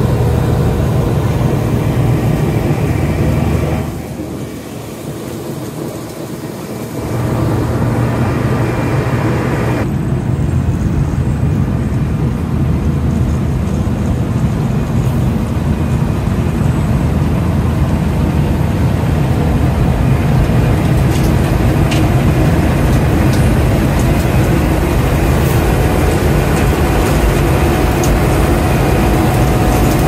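Heavy diesel construction machinery running steadily with a low, droning engine hum; the sound drops for about three seconds a few seconds in, then picks up again and holds steady.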